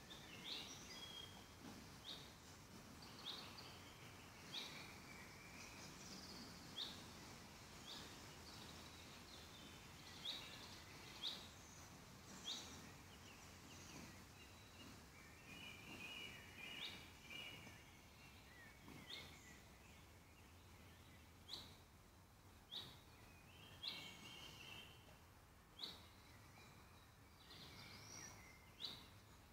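Faint woodland birdsong: one bird repeats a short, sharp high call every second or so, and a second bird's twittering song comes in now and then.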